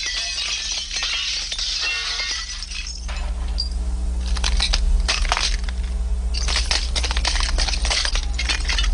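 Cartoon window glass shattering, then broken shards clinking and tinkling, with many sharp clinks from about three seconds in, over a steady low hum.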